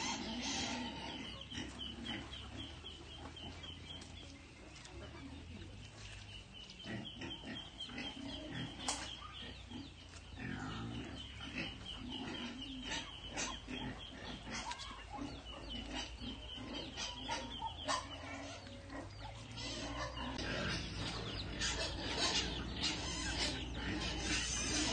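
Muscovy ducks and chickens in a farmyard, with low grunt-like animal calls and many short clicks and scuffles. A fast, high ticking trill comes and goes in stretches of a few seconds. The sound grows busier and louder over the last few seconds as the flock crowds in to feed.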